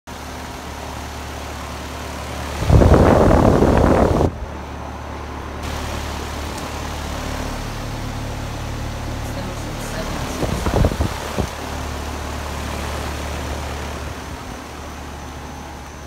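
Outdoor heat pump condenser unit running, a steady low hum from the compressor and condenser fan. A loud burst of noise comes about three seconds in, and a few shorter ones near eleven seconds.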